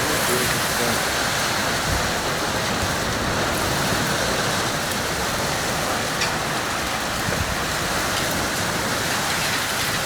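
Heavy storm rain pouring steadily, a dense even hiss with a few faint ticks of drops or hail striking.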